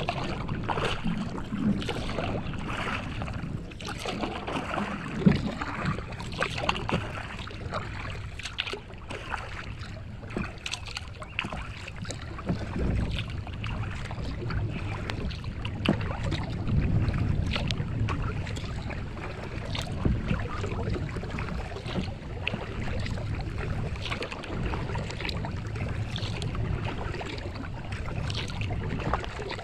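Kayak being paddled: water splashing and dripping from the paddle and lapping at the hull, with many short irregular splashes. Wind rumbles on the microphone underneath.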